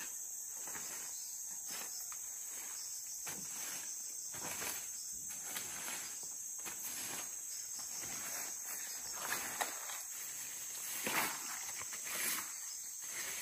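Steady high chorus of insects such as crickets, with irregular soft steps and rustles over it, a few slightly louder near the end.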